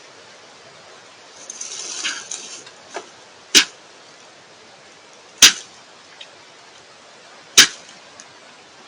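A deer buck sneezing: three sharp, loud blasts of air, about two seconds apart, with a longer hissing rush of noise shortly before them.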